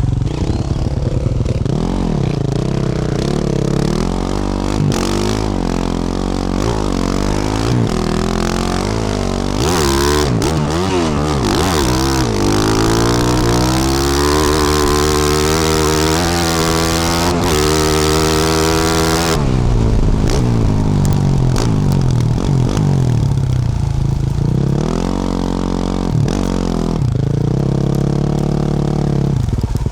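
Yamaha YZ450F's single-cylinder four-stroke engine through a Yoshimura RS-12 exhaust, ridden on a rough track: revs rise and fall with the throttle. From about ten seconds in it pulls hard through climbing revs, with a rush of hiss and sharp knocks, then backs off a little before twenty seconds.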